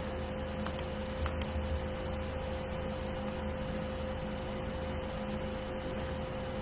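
Steady electrical hum with a faint hiss of room tone, and a couple of faint clicks about a second in.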